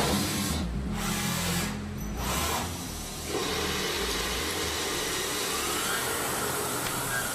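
Takisawa TMM 250 CNC lathe running and machining metal, a steady noisy mechanical sound. Over the last couple of seconds a faint whine rises and then falls in pitch.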